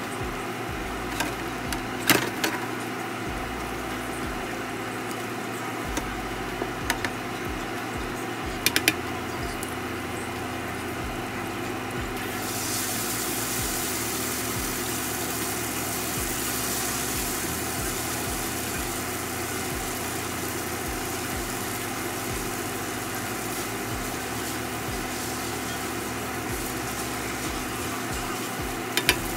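A steady hum with a few sharp clicks of metal tongs. About twelve seconds in, spaghetti goes into hot garlic and olive oil in a frying pan, and a loud sizzle starts and keeps up as the noodles are tossed with the tongs.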